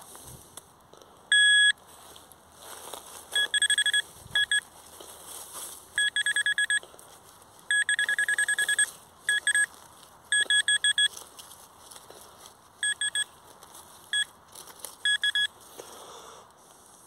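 Handheld metal-detecting pinpointer sounding: one steady high tone shortly after the start, then repeated runs of fast, evenly spaced beeps, roughly ten a second, as it is held close to a small buried metal target in the loosened soil. Faint rustling of soil and leaves runs underneath.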